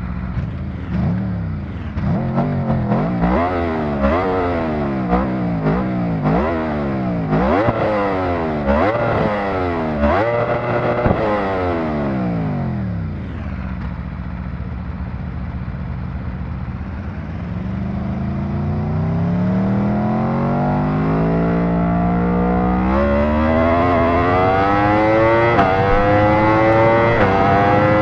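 Aprilia RSV4 V4 sport-bike engine being blipped hard, about once a second, with quick rises and falls in revs. About 13 seconds in it settles to idle, then climbs slowly and steadily in revs through the rest.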